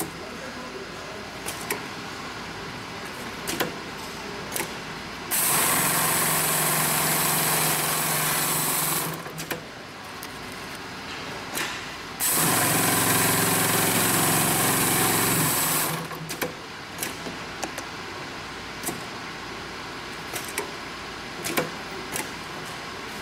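HighTex FIBC700 two-needle, four-thread chain stitch big bag sewing machine running at a steady speed in two bursts of about three and a half seconds each, one about five seconds in and one about twelve seconds in. Between and after the bursts there are only scattered light clicks.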